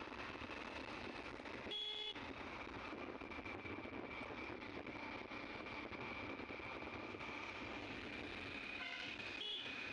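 Steady riding noise from a Hero commuter motorcycle moving through city traffic. A vehicle horn toots briefly about two seconds in and again near the end.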